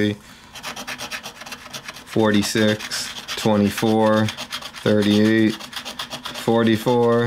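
Scratch-off lottery ticket being scratched: a run of about seven buzzing scrape strokes, some short and some about half a second long, with a softer rasping scratch between them.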